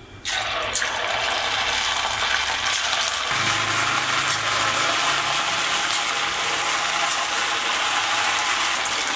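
Hot oil in a kadai sizzling and crackling as crumbled leftover-rice pakoda batter is dropped in by hand to deep-fry. It starts suddenly about a quarter second in and then runs on steadily, with the oil kept on full flame so the pakodas turn out crisp.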